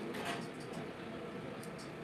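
Handling noise from an action camera being lifted out of its foam-lined carrying case: soft rubbing with a few faint clicks near the end.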